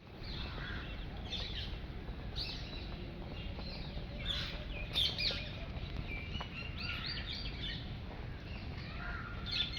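Several birds chirping in short, scattered calls over a low, steady background rumble.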